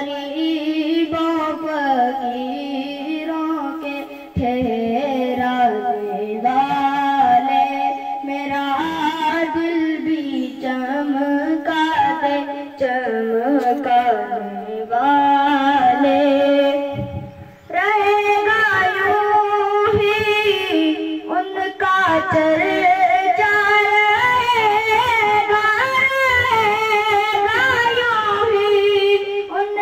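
A child singing an Urdu naat unaccompanied, in long ornamented lines. After a short break about two-thirds of the way through, the voice comes back on a higher pitch.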